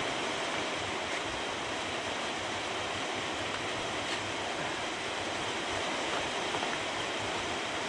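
Steady rushing background noise with no engine note, and a few faint small clicks.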